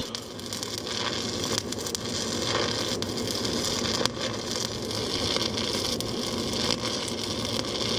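Stick-welding arc from a 1/4-inch 7018 low-hydrogen electrode at about 250 amps, a steady crackling hiss as the rod burns in.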